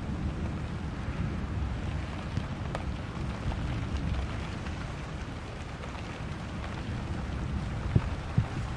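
Thunderstorm: steady rain with a continuous low rumble of thunder, and a couple of sharp drop hits near the end.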